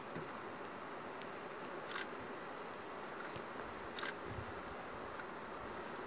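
Two sharp clicks about two seconds apart, with a couple of fainter clicks around them, over a steady hiss.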